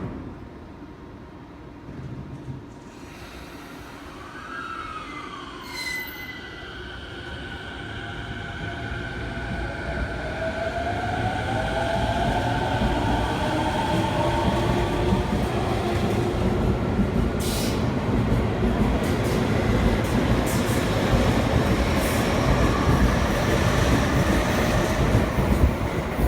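Toei 10-300 series train's Mitsubishi IGBT-VVVF inverter and traction motors pulling away, the inverter whine sounding as several tones that glide and climb in pitch as the train gathers speed. The sound grows steadily louder over a rising low rumble of wheels on rail.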